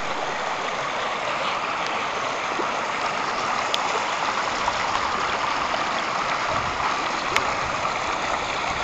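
Fast-flowing heavy-rain runoff rushing and splashing along a shallow channel across a flooded lawn, a steady water noise.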